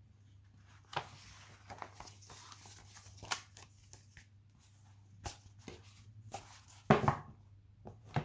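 Paper handling: a large fold-out paper poster rustling as it is folded, with scattered light taps and clicks. One louder knock about seven seconds in, as an item is set down on a wooden table.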